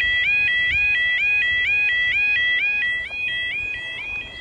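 Railway level crossing warning alarm sounding a repeating warbling tone several times a second, two alarms slightly out of step, warning that a train is approaching. It drops somewhat in loudness after about three seconds.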